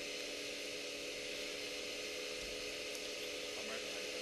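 Steady hiss with a faint, even hum underneath and no distinct events: background noise through a body-worn camera's microphone.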